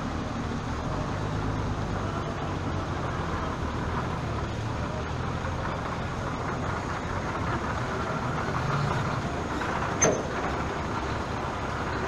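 Truck engine running amid steady street and traffic noise, with one sharp bang about ten seconds in.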